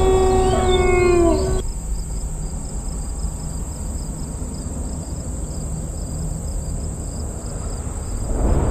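Eerie horror sound effects: a held, wavering tone that bends down and cuts off about a second and a half in, then a low steady rumble, and a new wailing tone rising near the end.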